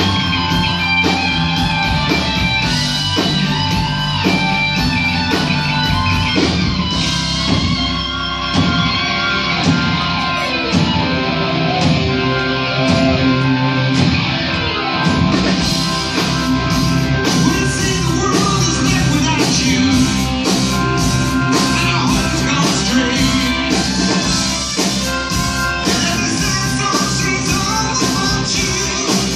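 Live rock band playing a song: electric guitars, keyboard and drums with singing, and a steady drum beat through the second half.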